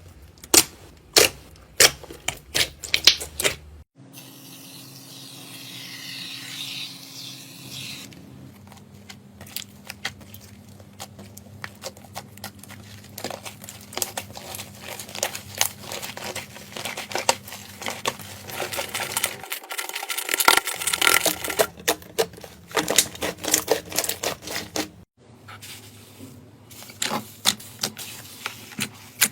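Slime being squeezed and poked by hand: trains of sticky clicks and crackles, with a few loud sharp pops in the first few seconds and a smoother hissing stretch a few seconds in.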